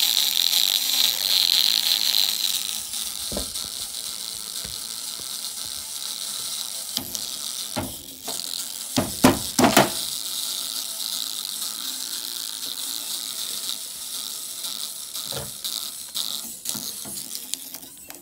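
A tiny cheap clear-cone speaker overdriven by an amplifier, giving out a harsh, buzzing, crackling distorted sound as it is being blown. It is louder and hissier for the first few seconds, then thinner and rattly, with scattered sharp pops, the loudest pair near the middle.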